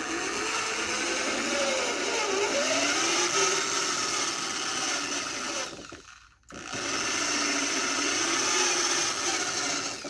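Power drill drilling a hole, running in two long stretches with a brief stop about six seconds in, its pitch wavering as the bit cuts.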